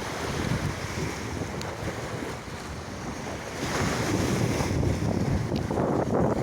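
Sea waves washing in under strong wind buffeting the microphone, a steady rushing noise that grows louder a little past halfway.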